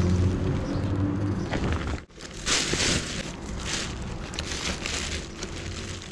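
Plastic bin bags rustling and crinkling in irregular bursts as gloved hands rummage through discarded fruit and vegetables. A low rumble runs under the first two seconds and drops out suddenly.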